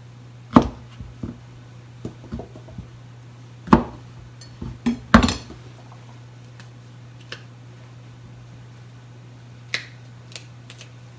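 Scattered knocks and clinks of kitchen utensils and dishes being handled on a counter. The loudest come about half a second in, near four seconds and around five seconds, with a last one near the end, over a low steady hum.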